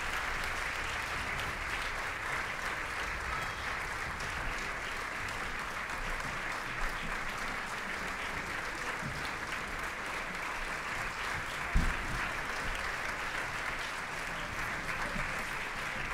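Theatre audience applauding steadily in curtain-call applause, with a single low thump about twelve seconds in.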